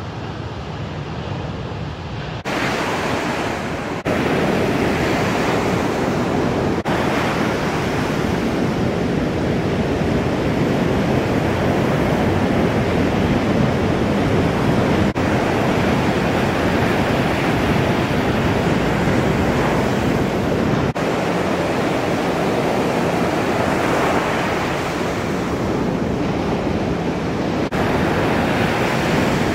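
Ocean waves breaking and white water rushing, a dense steady noise with wind on the microphone. The level jumps abruptly at several points where the shots change.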